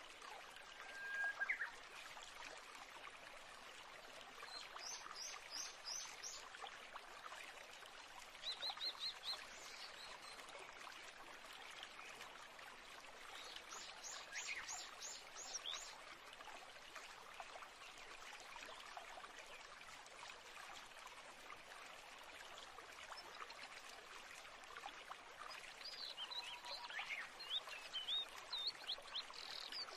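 Faint birdsong over a steady rush of running water. Short runs of quick, high chirps come about five seconds in, again near nine and fourteen seconds, and a busier string of calls near the end.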